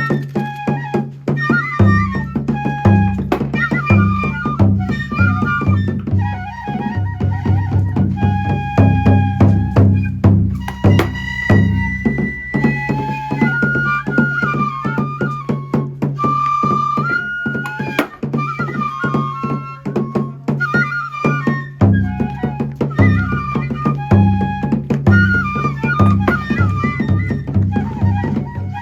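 Japanese kagura music: a high bamboo transverse flute playing a melody over steady, rhythmic taiko drum beats. The drumming drops out for a few seconds past the middle, then resumes.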